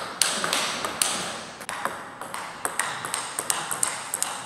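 Table tennis rally: crisp clicks of the celluloid ball struck by rubber-faced bats and bouncing on the table, about three a second.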